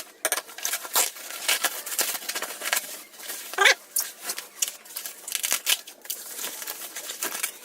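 Packaging being torn open and crinkled by hand: irregular tearing and rustling crackles.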